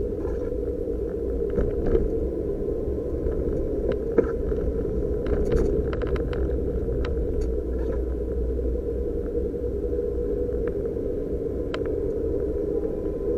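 Suzuki Jimny JB23's 660 cc turbocharged three-cylinder engine and road noise heard from inside the cabin, a steady drone while driving. Scattered small clicks and a sharper knock about four seconds in.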